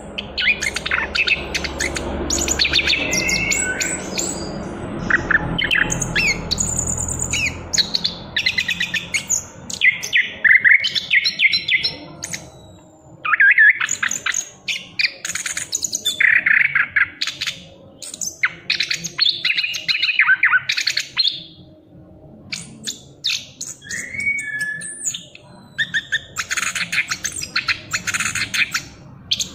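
Young orange-headed thrush, just moulting out of its spotted juvenile plumage, singing continuously: long runs of quick, varied notes and phrases with only short pauses between them.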